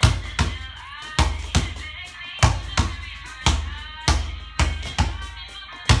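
Background music with a steady, punchy drum beat and a melody.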